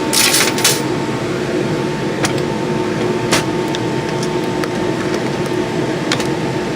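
Steady fan hum with two fixed tones. A short rustling hiss comes at the start, and a few light clicks follow, such as small objects being handled.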